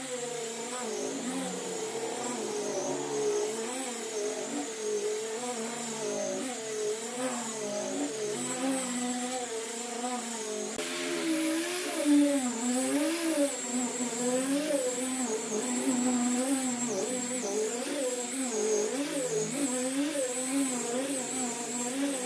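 An electric power tool's motor running steadily, its pitch wavering up and down as the load on it changes. A little before halfway a rougher hiss joins in.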